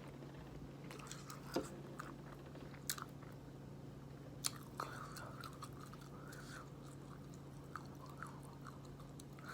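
Faint close-up chewing of food, with a few sharp mouth clicks spaced one to two seconds apart.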